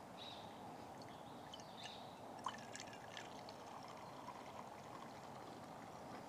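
Cowboy coffee poured from a camp pot into an enamel mug, a quiet steady trickle. There is a sharp click about two and a half seconds in, then a few smaller clicks.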